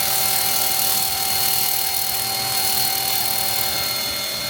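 EGO battery-powered pressure washer running steadily on its low setting with the turbo nozzle fitted: a steady electric motor whine over the hiss of the water spray.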